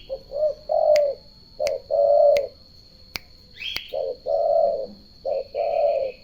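Turtle dove cooing: four low two-part phrases, each a short note followed by a longer one, with short pauses between. Sharp clicks, a faint steady high tone and a few higher bird chirps sound alongside.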